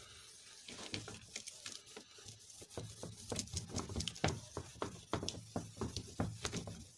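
Whiteboard being wiped clean with a hand-held eraser in quick repeated rubbing strokes, busier in the second half.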